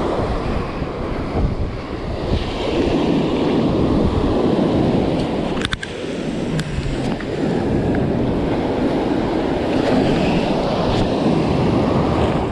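Surf washing and breaking around the shallows, with wind buffeting the microphone. There is a brief sharp click a little before the middle.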